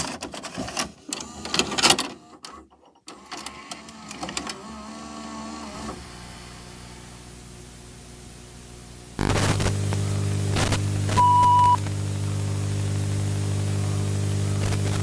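VCR loading and playing a VHS tape: irregular clunks and whirring from the mechanism over the first few seconds, then soft tape hiss, then a steady low electrical buzz from about nine seconds in, with one short high beep about two-thirds through.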